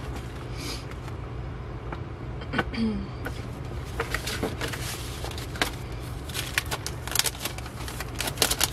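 Large glossy paper posters rustling and crinkling as they are handled and flipped, with crackly plastic-sleeve handling near the end, over a steady low hum.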